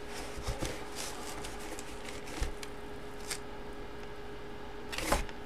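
Faint handling of a cardboard collectibles box being opened: light scrapes and taps, with a brief louder rustle near the end, over a faint steady hum.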